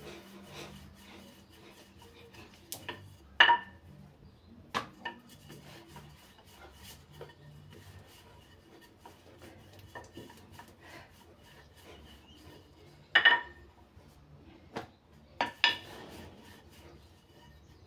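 Wooden rolling pin rolling out samosa dough on a floured granite countertop: a steady rubbing, scraping sound broken by several sharp knocks with a brief ringing, the loudest about three seconds in and twice more near the end.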